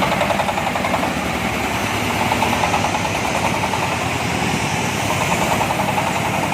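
Corn sheller's 26 HP Jiangfa diesel engine running steadily with an even, rapid chug.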